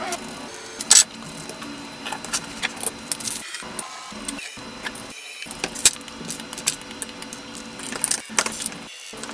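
Small hard plastic and metal parts clicking, knocking and clinking as an RC crawler chassis is assembled by hand, with a gearbox being set into the frame and a servo fitted. The clicks are scattered and irregular, with the sharpest knocks about a second in and near the middle.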